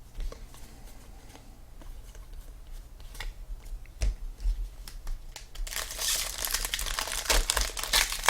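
Plastic trading-card pack wrapper being handled and torn open: scattered light clicks and rustles, then dense crinkling from about six seconds in.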